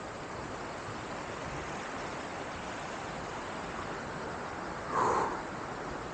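Steady, even rush of falling water from a waterfall, with one brief louder sound about five seconds in.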